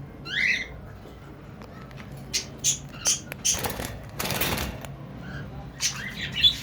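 Pet birds squawking and chirping in short calls, with sharp clicks and a noisy rustling burst about four seconds in, over a low steady hum.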